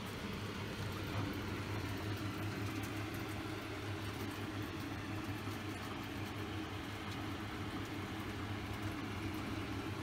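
Steady low hum of a running air-conditioning unit, its motor and compressor giving an even drone with no change.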